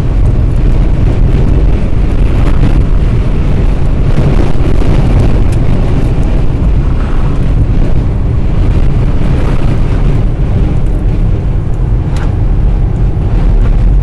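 Road noise of a car driving on the freeway under wind buffeting the microphone: a loud, steady, low rumble.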